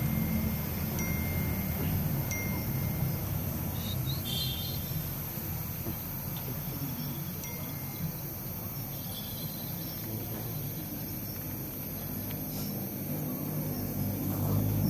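A small bell or chime ringing a few times in short, clear high tones, over a steady low background hum.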